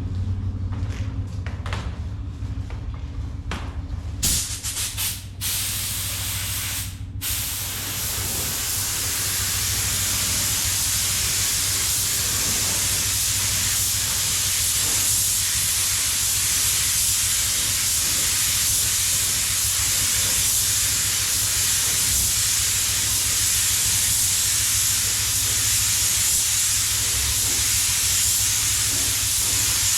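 Paint spray gun spraying clear coat: a few short bursts of air-driven spray, then a continuous hiss from about eight seconds in. A steady low hum runs underneath.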